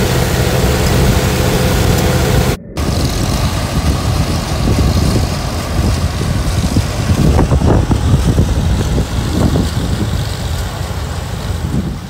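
Vintage farm tractor engines running steadily with a pull-type corn picker working behind. A brief break comes about two and a half seconds in; after it the sound is noisier and rougher.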